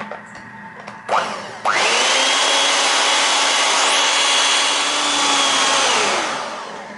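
Electric hand mixer beating eggs and sugar in a plastic bowl. A short burst about a second in, then the motor whines up to speed, runs steadily for about four seconds, and spins down near the end.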